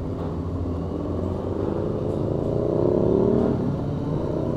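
Honda Transalp 650's V-twin engine pulling away at low speed, its revs climbing for about a second and a half and then dropping suddenly about three and a half seconds in, as at an upshift.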